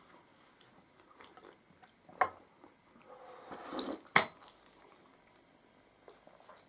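Quiet breakfast-table sounds: a sip of hot tea from a glass cup and two sharp clinks of crockery, the louder one just after four seconds in.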